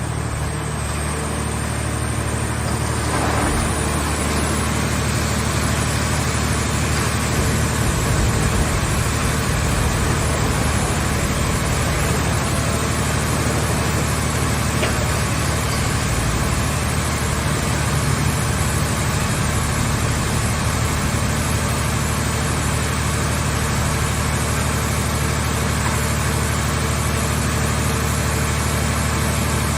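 Engine of a mobile hydraulic scrap car baler running steadily, a constant low engine hum under broad mechanical noise.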